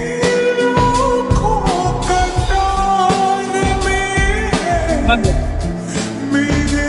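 Background music with a singing voice and a steady beat.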